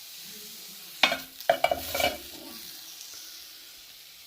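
Grilled chicken strips sizzling in a frying pan, with a quick run of loud knocks and scrapes against the pan about a second in, lasting about a second, as the strips are moved.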